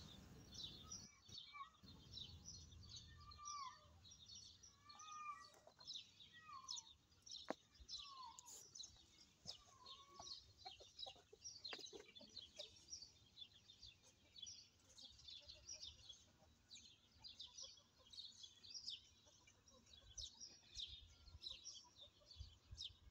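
Faint outdoor birdsong: many short high chirps throughout, joined during the first ten seconds by about seven lower calls that bend up and down.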